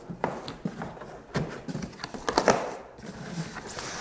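Cardboard shipping box and its white packing insert being handled and worked loose by hand: irregular scraping and rustling with several short knocks, the sharpest about two and a half seconds in.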